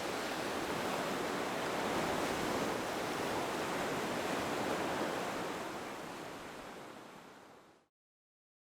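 A steady, even rushing noise that fades out over the last few seconds and then stops.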